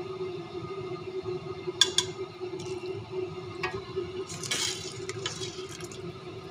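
Metal ladle stirring a pot of wet tomato-and-spice stew: squelching, with a few sharp clinks against the steel pot and a louder scraping rush about four and a half seconds in, over a steady hum.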